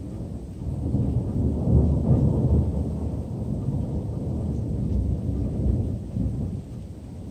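Rolling thunder: a low rumble that swells about a second in, peaks around two seconds, then slowly dies away toward the end.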